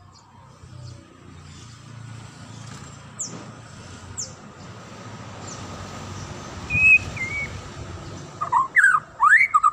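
White-rumped shama (murai batu) song: a few thin, high, down-slurred notes, a short wavering whistle about seven seconds in, then loud, rapid swooping whistled phrases near the end.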